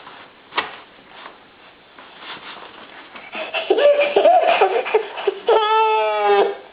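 A person's voice making odd non-speech noises: a click about half a second in, then giggle-like pitched sounds from about three seconds in, ending in one long held note that stops near the end.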